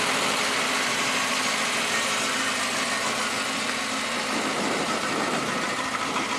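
1966 Volvo 122's B18 four-cylinder engine with twin SU HIF6 carburettors idling steadily while it warms up after a cold start. The SU carbs carry the wrong needles, which is why it doesn't run great.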